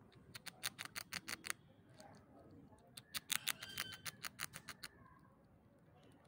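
A squirrel's teeth gnawing at a hard lollipop: two runs of quick, sharp clicks, about eight a second. The first lasts about a second near the start, and the second starts about three seconds in and lasts nearly two seconds.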